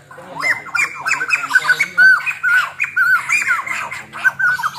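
White-crested laughingthrush calling: a fast, loud run of short whistled notes that swoop up and down, one after another with hardly a pause.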